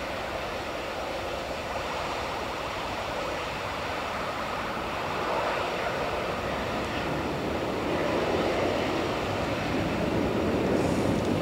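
Airbus A321's jet engines running at taxi power, a steady rushing noise that grows gradually louder.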